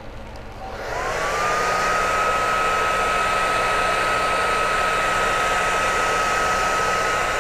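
Hand-held hair dryer switched on about a second in, drying freshly airbrushed paint on a crankbait. It gives a steady rush of air with a whine that rises quickly to one held high pitch.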